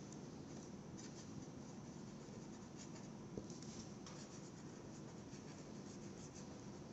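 Marker pen writing by hand on paper: faint, short scratchy strokes of the tip across the sheet, with one light tap about halfway through.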